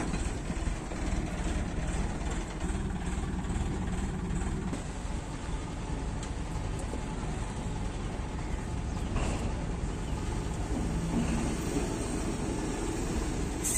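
A steady low engine rumble, like heavy machinery running, with a faint click about nine seconds in.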